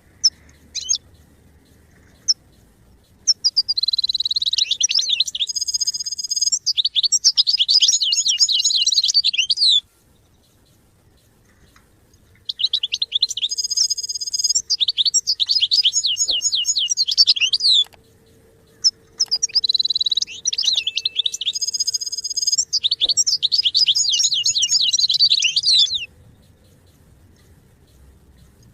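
European goldfinch singing: a few single call notes, then three long bouts of rapid, high twittering song mixed with buzzy notes, separated by short pauses.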